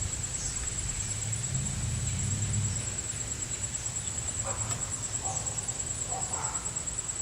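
Insects trilling outdoors: a steady high-pitched buzz that pulses evenly, over a low rumble, with a few short faint calls in the second half.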